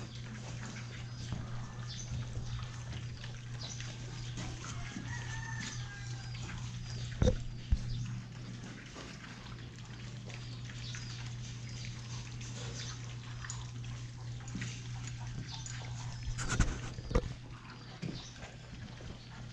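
A litter of month-old Belgian Malinois puppies eating from metal bowls: busy chewing and lapping, with a couple of sharp knocks about a third of the way in and again near the end. A steady low hum runs underneath.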